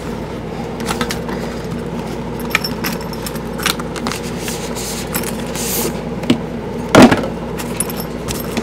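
Handling noise from unpacking a cardboard lens box: scattered light clicks and taps and a brief rustle, with one louder knock about seven seconds in, over a steady low background hum.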